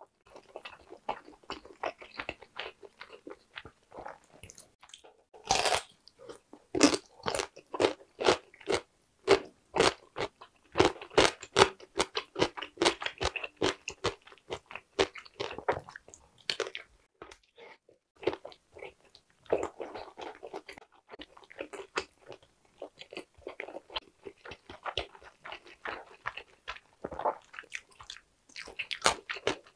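Close-miked chewing and biting of Korean blood sausage (sundae): wet mouth sounds made of many quick clicks and smacks, densest from about five seconds in until a short lull past the middle.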